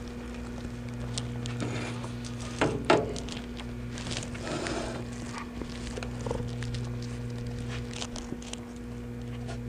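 Light handling noises, stainless steel tubing and tools clicking and knocking on a steel welding table, over a steady electrical hum; two louder knocks come close together about three seconds in.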